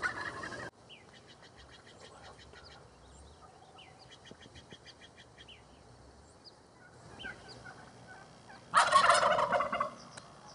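Wild turkey gobbler gobbling once near the end, a loud rapid rattling call lasting about a second. Earlier, faint high chirping trills of small birds are heard, and a brief noisy sound at the very start cuts off abruptly.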